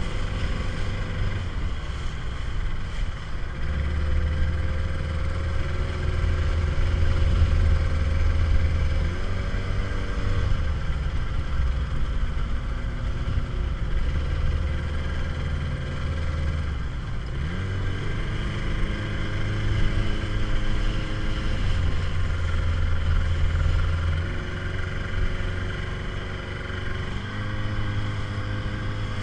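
Small motorboat engine running steadily, its note shifting up and down every few seconds as the throttle changes, with a brief rising sweep about seventeen seconds in.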